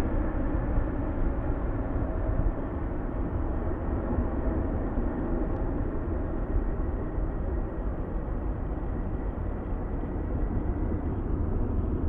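Jet engines of a departing Boeing 777, a steady low rumble that eases off slightly as the aircraft moves away.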